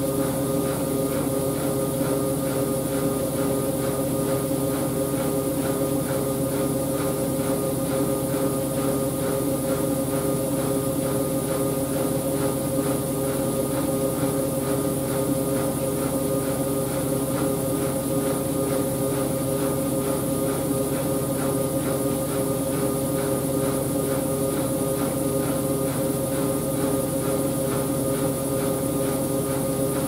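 Siemens Siwamat IQ 716 front-loading washing machine spinning its drum at a steady speed: an unchanging motor and drum whine with a faint high-pitched tone above it.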